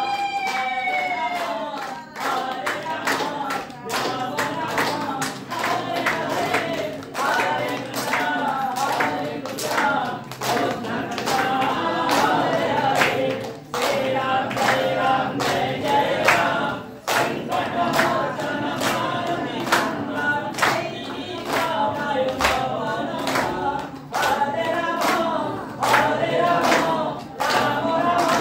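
A group of voices singing a devotional chant together, kept in time by regular sharp claps. In the first second a long held note drops in pitch and stops.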